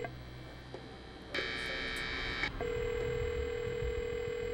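Electronic telephone call tones from a crisis-negotiation throw-phone console, calling the throw phone. A steady low tone stops at the start. About a second and a half in, a higher buzzing tone sounds for about a second, and then the steady low tone returns.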